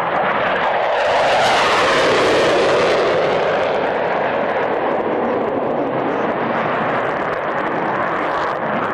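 Panavia Tornado's twin Turbo-Union RB199 turbofans roaring as the jet passes in a display flypast, swelling about a second in and then easing, with the pitch falling as it goes by.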